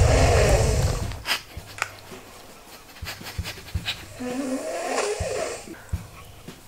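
A sleeping man snoring loudly in long, rasping snores: one fading out about a second in and another from about four to six seconds in, with a few faint clicks between them.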